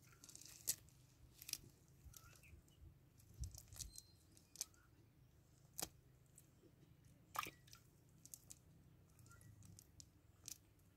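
Faint scattered clicks and small wet crackles, about half a dozen sharper ones among them, from hands picking through a cast net on wet mud.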